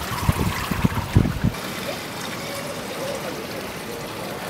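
Pool water splashing and trickling at the pool's edge as a camera is dipped in it, with several low thumps in the first second and a half, then a steady wash of water.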